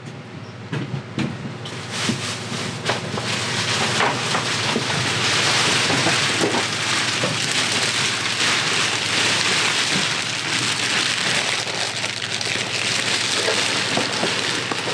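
Plastic sheeting being handled with a few crinkles and knocks, then a steady hiss from about four seconds in as an aerosol spray-paint can is sprayed onto the plastic-wrapped wooden seat.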